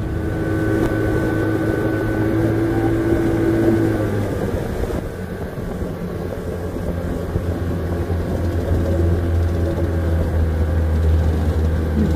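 Motorboat engine running steadily at a constant drone; its pitch shifts slightly about four seconds in.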